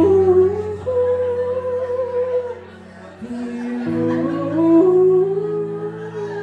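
Male singer holding long, high sung notes into a microphone over sustained backing chords; the chords change about three seconds in after a short lull.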